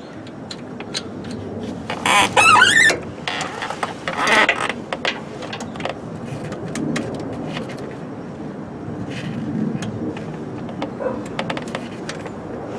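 Scattered light metallic clicks and taps of a hand and tools working at a starter motor bolt. About two seconds in there is a short, high squeal rising in pitch, and a weaker one follows about two seconds later.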